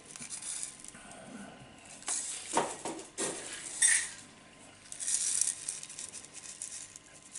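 Irregular clinks, knocks and gritty rustling of bonsai repotting work: granular substrate rattling into the pot and tools knocking against it, loudest about two to four seconds in.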